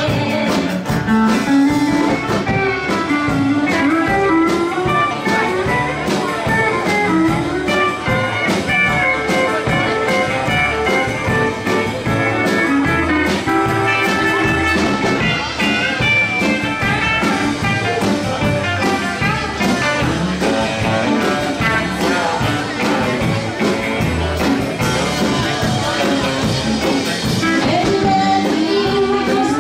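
Live country band playing a dance number with a steady beat: electric guitar, pedal steel guitar, upright bass and drums, with a woman singing.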